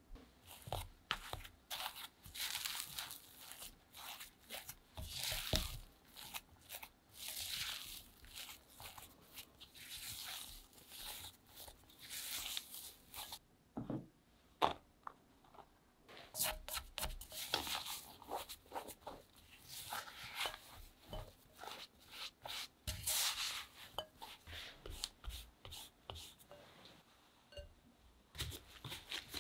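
Mashed potato being mixed in a glass bowl, a run of repeated scraping, squishing strokes. The strokes pause about halfway, with a single knock, then carry on.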